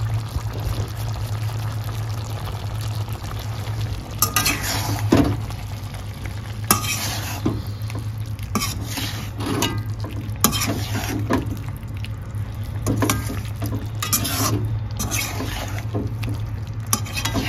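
Spatula stirring and scraping chicken liver and gizzard in a hot frying pan, with a light sizzle. The strokes come irregularly from about four seconds in, over a steady low hum.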